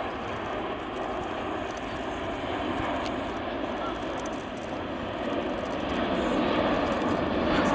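Airbus A380 airliner's jet engines rumbling as it flies past, with a steady roar that grows louder over the last couple of seconds.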